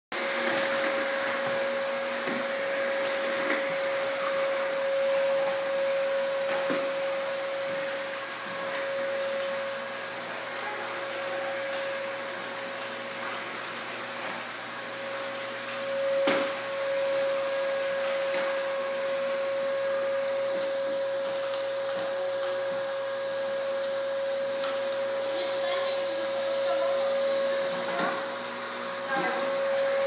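Canister vacuum cleaner running steadily, its motor giving a constant whine over the rush of air. A single sharp knock comes about sixteen seconds in.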